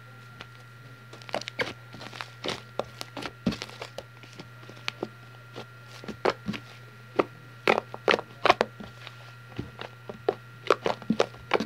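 Fluffy shaving-cream slime being kneaded and stretched by hand: irregular wet pops and crackles, several a second, thickest in bunches around the middle and near the end.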